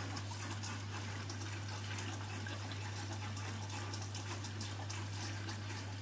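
Candy front-loading washing machine filling with water on its final rinse: a steady rush of inflowing water, which carries the fabric softener into the drum, over a constant low hum.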